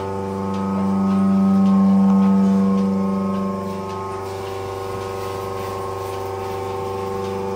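Steady electric machine hum of the milk cooling tank's equipment, several even tones held without change; a deeper tone is loudest for the first three seconds or so, then drops away. Milk poured from a steel can into the tank's hatch runs in faintly during the second half.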